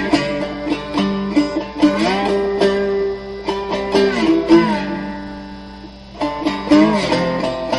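Charles Kimbler three-string cigar box guitar played with a Mojobone slide: plucked notes with the pitch sliding up and down between them. A held note fades out about five seconds in before the playing picks up again.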